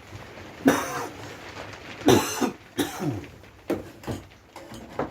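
A person coughing, a run of harsh coughs, the loudest two about two seconds in, with a few weaker ones after.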